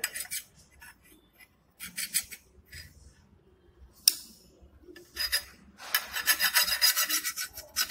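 Steel screwdriver shaft scraped along the edge of a kathi peeta blade to sharpen it, a dull edge being honed. A few separate scraping strokes come first, with one sharp click about four seconds in. In the last two seconds comes a quick, even run of strokes, about five a second.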